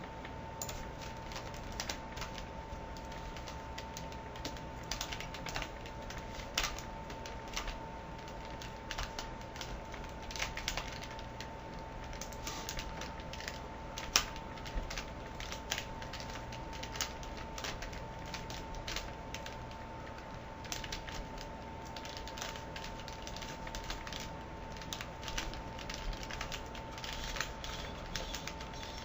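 Plastic Rubik's cube being turned quickly by hand, its layers clicking and clacking in an irregular stream of short snaps during a speed solve. A faint steady tone sits underneath.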